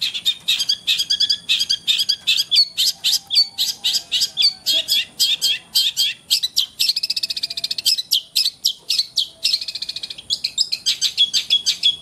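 Caged long-tailed shrike (cendet) singing continuously at speed: a rapid run of short, sharp high notes, several a second. The run is broken by two longer unbroken trills, about seven and ten seconds in.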